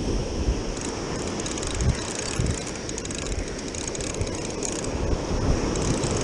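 Fishing reel being cranked steadily as a hooked fish is reeled in, its gears whirring and clicking, with wind buffeting the microphone.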